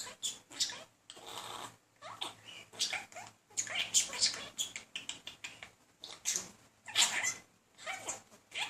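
Budgerigar chattering and warbling: quick, high, twittering chirps and squiggly glides in a run of short phrases with brief pauses, the budgie's courting chatter.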